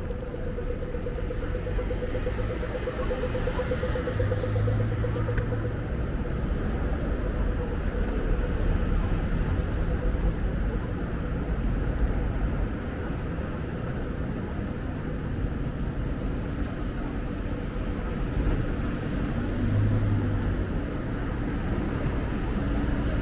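City street traffic with wind buffeting the microphone as a constant low rumble; a steady hum holds for the first several seconds.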